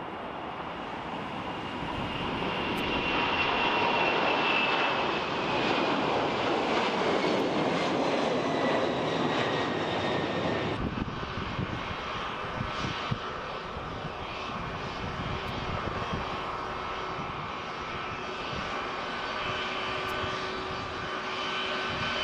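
Boeing 747 jet engines at takeoff thrust, rising to a loud roar with a whine that falls in pitch as the jet climbs away. About eleven seconds in, this gives way abruptly to the quieter, steady whine of a Boeing 757's twin jet engines at taxi power.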